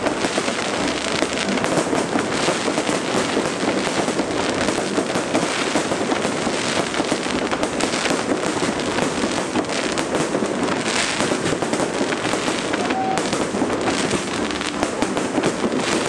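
Aerial fireworks display: a dense, continuous crackling and popping of many bursts, with no pause.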